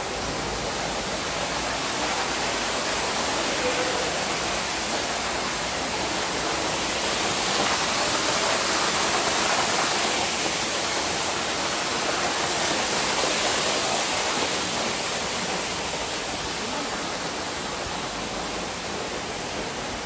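Steady rush of falling water, which grows louder through the middle and eases off toward the end.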